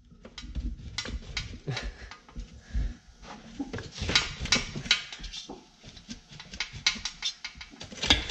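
Irregular metallic knocks, clunks and scraping as the cylinder head of a Volkswagen Type 1 1500cc engine is rocked and worked loose off its studs and cylinders by hand.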